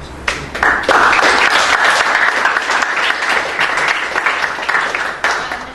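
Applause from a small audience in a room, many hands clapping together. It breaks out just after the start and dies away near the end.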